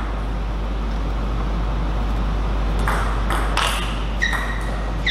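Table tennis rally: the celluloid ball clicks sharply off the bats and table a few times a second, starting about three seconds in, over a steady low hum. Two short high squeaks come near the end.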